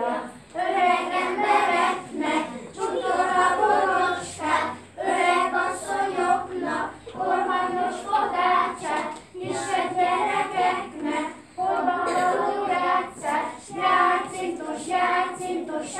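Young children singing a song together in chorus, in short phrases with brief breaks between them.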